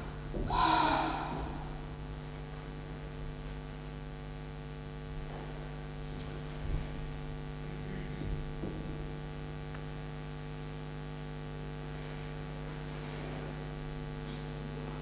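Steady electrical mains hum in the recording's sound, with one short loud noise about half a second in.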